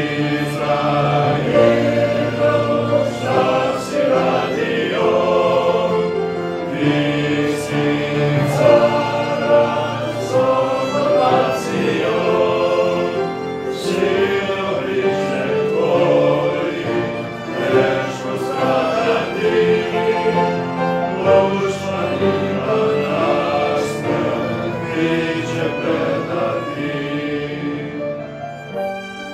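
Mixed choir of men's and women's voices singing a hymn together; the singing eases off near the end.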